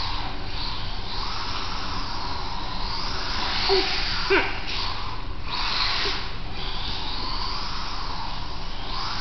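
Losi Micro Desert Truck RC car with a 10250kv brushless motor driving on a concrete floor: a high-pitched motor and drivetrain whine that swells and fades in spurts with the throttle, its tyres struggling for traction. Two short squeaks about four seconds in.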